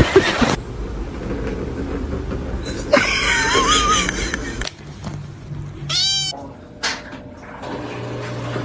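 A domestic cat meowing twice: a long wavering meow about three seconds in, and a short meow about six seconds in.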